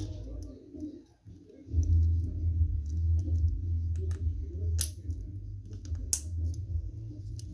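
Small plastic clicks and snaps of a Klikbot toy figure's parts being pulled off and fitted by hand, with a few sharper clicks in the second half, over a steady low rumble.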